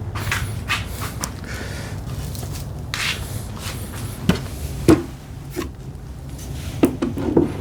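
Wooden cabinet parts being handled during a glue-up: a few brushing scrapes, then several sharp knocks of wood against wood, over a steady low hum.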